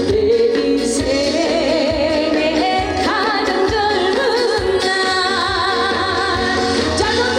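Trot song performed live: a woman singing over a loud backing track, her voice wavering through held notes.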